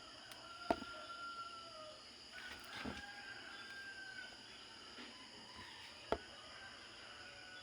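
Faint rooster crows, drawn-out calls that trail off slightly, with two sharp knocks, one about a second in and one near six seconds.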